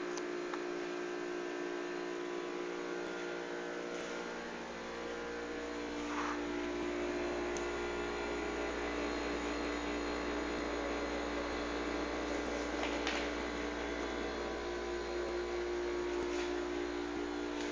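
Brastemp Active refrigerator running with a steady hum made of several held tones, a few faint ticks over it. The owner finds this noise abnormal for a fridge, 'like a tractor in the kitchen'.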